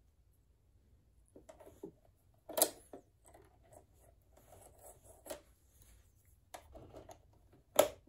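Hand handling noise at the bobbin area and needle plate of a Brother sewing machine: light rubbing and scraping with a few sharp plastic clicks. The loudest clicks come about two and a half seconds in and near the end.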